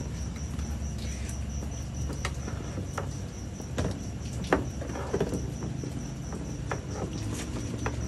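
Scattered light clicks and taps of hands and a screwdriver working at a pickup's door handle and door edge, the sharpest about four and a half seconds in, over a steady low hum and a faint steady high whine.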